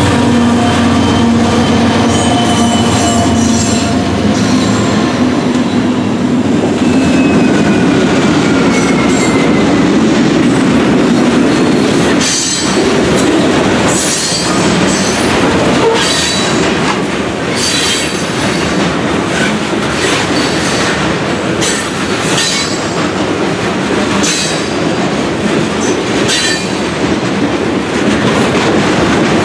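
Freight train passing close: diesel locomotives running by for the first few seconds, then a string of covered hopper cars rolling past, their wheels clacking over rail joints and flanges squealing.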